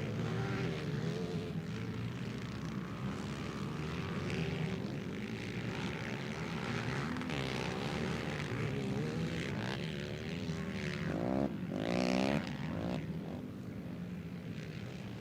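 Racing ATV quad engines revving up and down as the quads lap the motocross track, with one revving louder and climbing in pitch about eleven to twelve seconds in before the sound settles.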